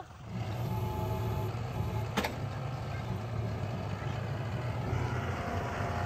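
Diesel engine of a John Deere utility tractor running steadily while it carries a large oak log on its front-loader pallet forks, with a single sharp click about two seconds in.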